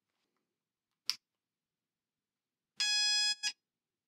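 A single sharp click about a second in, then a handheld metal detector gives a steady electronic beep of about half a second, followed by a short second beep.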